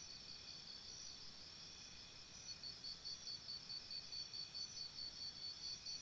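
Faint insect chirping: a high, pulsing trill of about four chirps a second that grows clearer from about halfway through, over a steady faint high hum.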